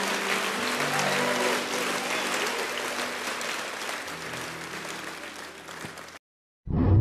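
A church congregation applauding, with sustained musical chords held underneath. The applause fades and cuts off abruptly about six seconds in, and a short low-pitched electronic tone sounds at the very end.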